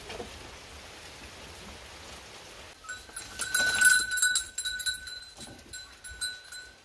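Steady rain hiss, then about three seconds in a goat's bell starts clanking and ringing with rapid strikes. It is loudest around four seconds and dies away toward the end as the goat moves off.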